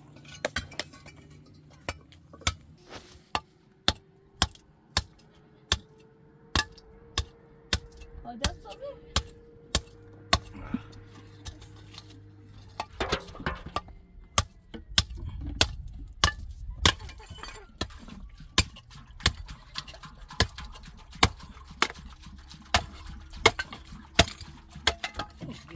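Repeated sharp clinks and knocks of hard objects striking, about one to two a second at an uneven pace.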